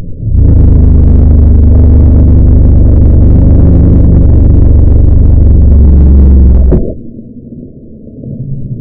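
Loud, distorted low drone held at a steady pitch for about six and a half seconds, cutting off abruptly, then a quieter muffled rumble.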